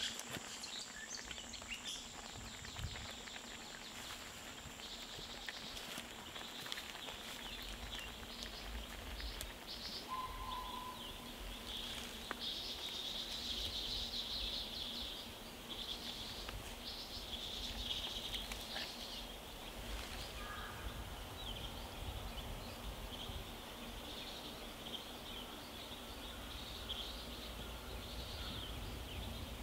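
Outdoor ambience of small birds chirping in quick high twittering bursts, most busily midway through, over a faint low rumble.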